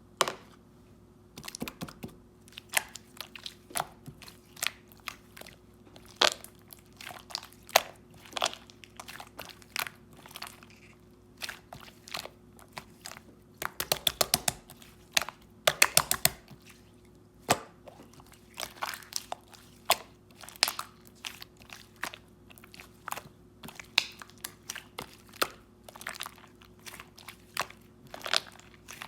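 Small light-purple slime being squished and pressed by hand, making sharp sticky pops and clicks, with a quick run of crackling pops about halfway through.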